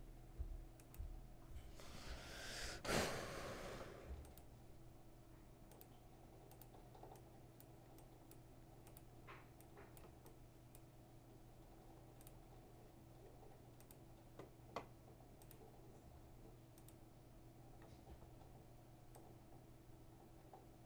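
Faint, scattered computer mouse clicks over a low steady hum, with one short rush of breath noise on the microphone about three seconds in.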